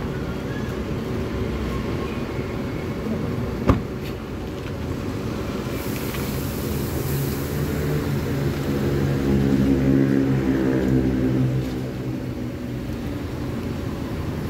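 Large diesel engine of a Mercedes-Benz coach running steadily, growing louder for a few seconds past the middle before settling back. A sharp click comes about four seconds in, and a short hiss about six seconds in.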